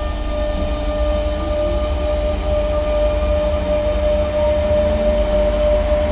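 Electric train running: a steady humming tone over a low rumble of the cars.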